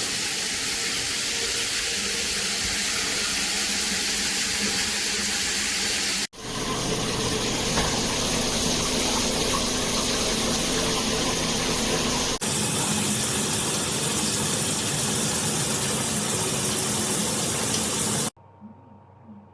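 Water spraying steadily from a Cobbe shower head combo, as an even rush. It is heard in three stretches joined by abrupt cuts about six and twelve seconds in, each a slightly different spray, and it stops abruptly near the end.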